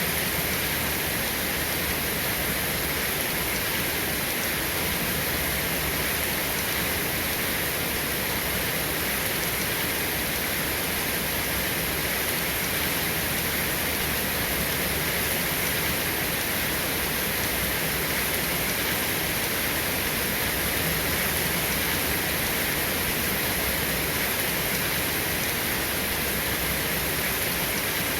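Steady rain: an even, unbroken hiss with no distinct drops and no thunder.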